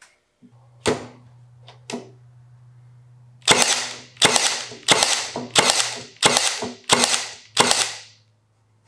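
Milwaukee M18 Fuel cordless 18-gauge brad nailer firing brads into hard oak: two lighter clicks, then seven sharp shots in quick succession about 0.7 s apart. A low steady hum runs underneath.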